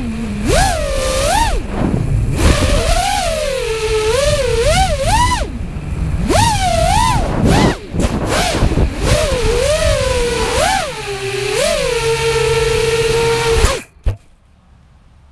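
FPV quadcopter's brushless motors and propellers whining in flight, the pitch swooping up and down quickly with the throttle over a noisy rush of air. Near the end the pitch holds steady for a moment, then cuts off suddenly as the quad lands and the motors stop.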